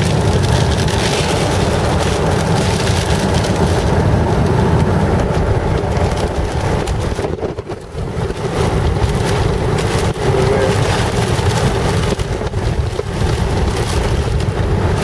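Car driving through a thunderstorm: a loud, steady rush of wind and rain against the vehicle mixed with low road and engine rumble, dipping briefly about halfway.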